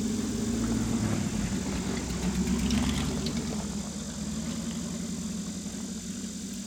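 An engine running steadily at idle, swelling slightly about two to three seconds in and then settling a little lower.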